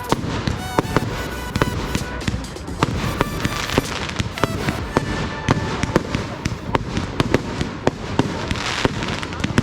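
Fireworks display going off: a rapid, continuous run of sharp bangs and crackles, several a second.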